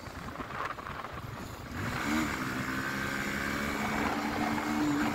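Motorcycle engine: an even rushing noise for about two seconds, then the engine note comes in with a short rise in pitch and runs on steadily.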